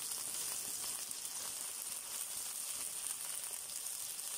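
Cut okra frying in hot oil in a frying pan over medium-high heat: a steady, crackling sizzle.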